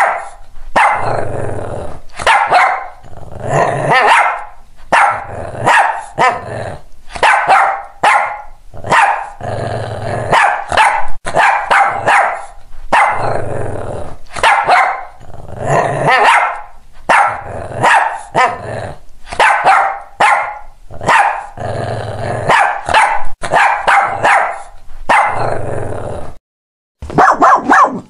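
A dog barking over and over, in short runs of barks with brief pauses between them.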